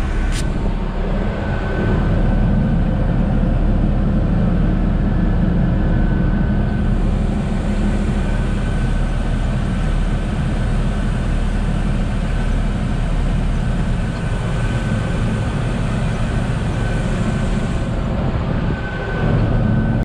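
Tractor diesel engine running steadily under load, heard from inside the cab, mixed with the drone of a forage harvester chopping corn for silage alongside. A faint high whine comes and goes over the steady low drone.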